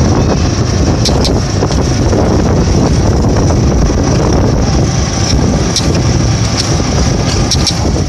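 Steady loud rumble of a motorcycle-and-sidecar tricycle riding along, heard from inside the sidecar: engine, road and wind noise, with a few sharp clicks.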